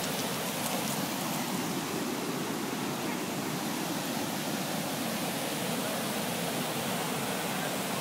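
Steady rushing of water pouring over a wide, low rock-ledge waterfall.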